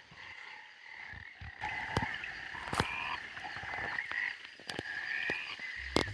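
Frogs calling in a chorus of short, clipped, repeated calls of fairly high pitch, overlapping one another, with scattered sharp clicks among them.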